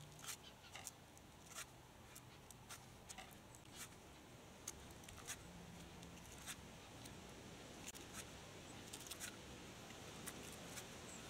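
Faint, irregular clicks and scrapes of a knife shaving a block of cheese on a plastic chopping board.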